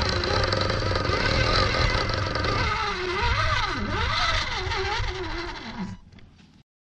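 Motor and geartrain of an electric RC rock crawler whining as it drives over dirt, the pitch rising and falling again and again with the throttle, then dying away near the end.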